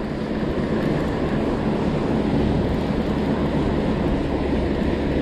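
Steady low wind rumble on the microphone over the wash of surf, while a spinning reel is cranked to wind in a hooked fish.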